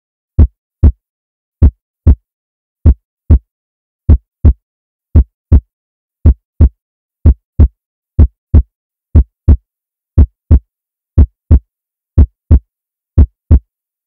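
Heartbeat sound effect: paired low thumps, lub-dub, about one pair a second with silence between, quickening slightly.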